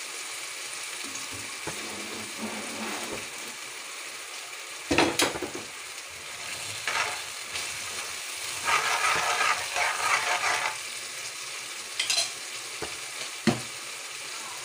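A butter, onion and ketchup sauce sizzles in a metal wok while a metal ladle stirs and scrapes through it. There are a few sharp knocks of the ladle against the pan, one about five seconds in and two near the end.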